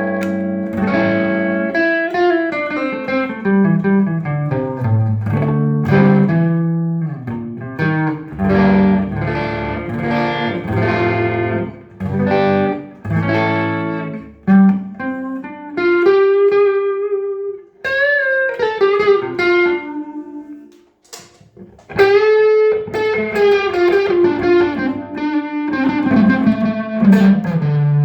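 Electric guitar, a Maverick F1 with two humbuckers, played straight into a Trace Elliot Trident valve combo amp with 6L6 power valves and no effects: a run of notes and chords with some bent or sliding notes, and a brief break just before the last few seconds.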